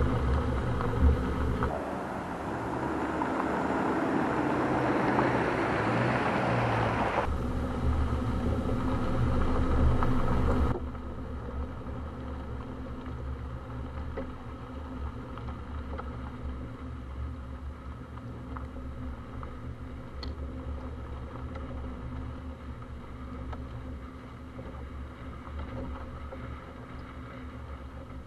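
2020 Subaru Crosstrek's boxer four-cylinder engine with its tyres on a dirt trail, driving at a steady, slow pace. For the first ten seconds or so loud tyre-on-dirt and wind noise covers the engine. Then the sound drops suddenly to a quieter steady engine drone.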